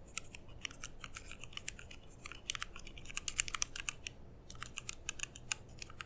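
Typing on a mechanical keyboard fitted with lubed, super silent linear switches built from Halo housings and MX Red stems: a quick, dense run of keystroke clicks, thickest around the middle.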